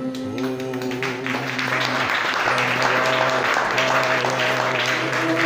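A small group clapping, starting about a second in, over music with steady held notes.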